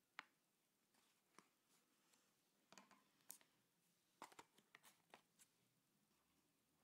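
Near silence, with faint rustles and small clicks of folded paper being handled, one sharp click just after the start and a quick cluster of them in the second half.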